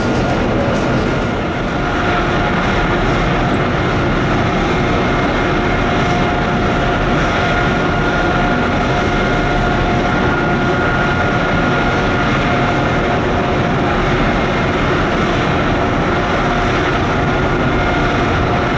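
Steady mechanical drone with a constant high whine over it, like engines or machinery running.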